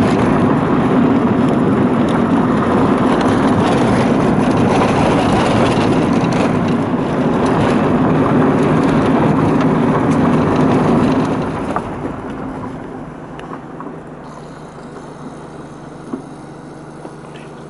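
Motorhome driving on a bumpy dirt road: steady engine and tyre-on-gravel noise. About eleven seconds in the noise falls away as it slows to a stop, leaving a low idle with a few light clicks.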